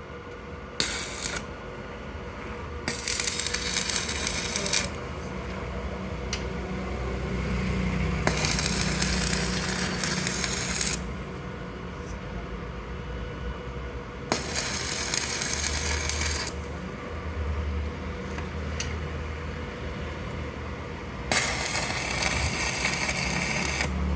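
Metalworking on a heavy truck's drive shaft: five bursts of harsh hissing noise, each one to three seconds long, with sharp metallic clinks between them over a steady low hum.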